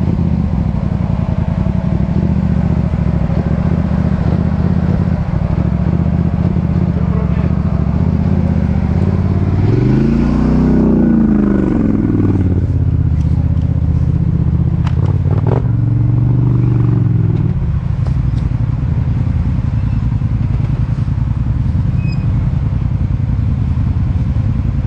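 ATV engine running steadily while riding off-road. It revs up and back down twice, about ten seconds in and again about fifteen seconds in, with a few knocks in between.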